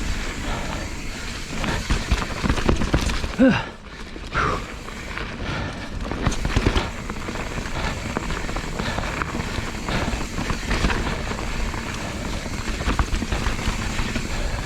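Mountain bike riding down a wet, muddy, rocky trail: a steady rush of tyres on wet dirt, with frequent knocks and rattles from the bike over rocks and roots.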